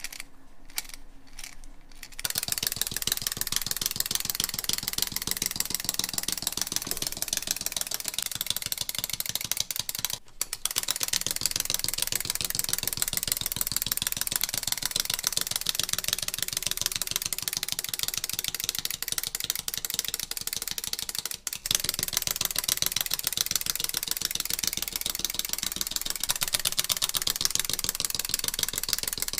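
Clockwork motor of a fluffy wind-up chick toy running, a fast steady clatter of clicks as the toy hops across a tabletop. It starts after a few separate clicks about two seconds in and breaks off briefly twice.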